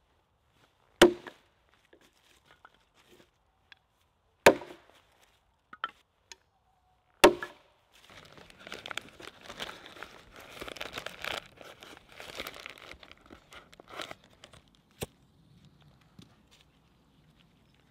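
Three sharp hatchet blows into wood, about three seconds apart. Then several seconds of dense crackling and rustling, and a single sharp knock near the end.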